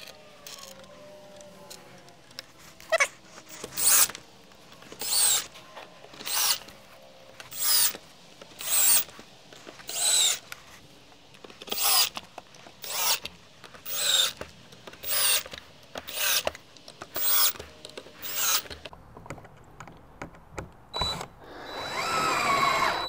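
Cordless drill-driver driving pocket-hole screws into plywood: a series of short trigger bursts, each a quick whirring whine that rises as the motor spins up, about one a second, with a longer, rougher run near the end.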